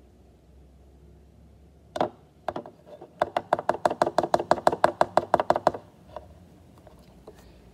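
Upturned plastic glue bottle knocked against the rim of a clear mixing bowl to get the last of the glue out: one sharp knock about two seconds in, a couple more, then a quick run of about twenty ringing taps, some eight a second, stopping near the end.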